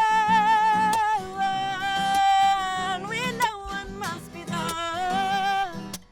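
A song: a voice holding long, wavering sung notes without clear words over acoustic guitar strumming.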